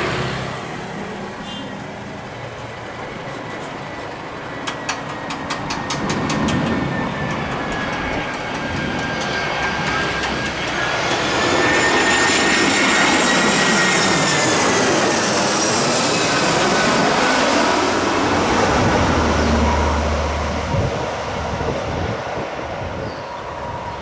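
Airbus A320's CFM56 turbofan engines passing on landing, a steady jet roar with a high fan whine that builds, bends in pitch as the jet goes by about halfway through, and then fades.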